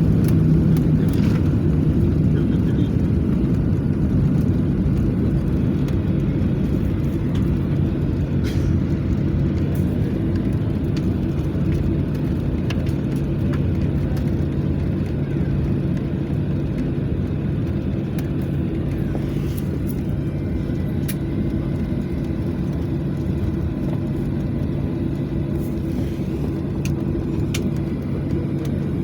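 Airliner's engines and cabin noise heard from inside the cabin after landing: a steady low hum with two held tones that slowly gets quieter as the plane slows.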